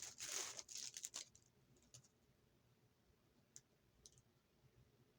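Packaging crinkling as a ball of yarn is handled, for about the first second, then near silence with a few faint clicks.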